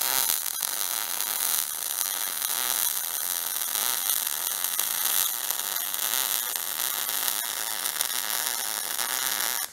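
MIG welding arc laying a bead on steel: a steady, dense crackling sizzle that stops abruptly near the end.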